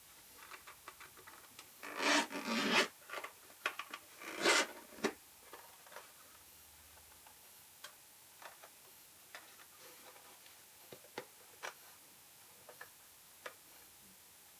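Camera-filter kit packaging handled by hand: two bursts of rubbing and scraping, followed by scattered light clicks and taps.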